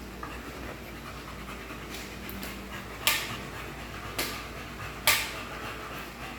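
A dog breathing out in three short, sharp breathy huffs about a second apart; the first and last are the loudest.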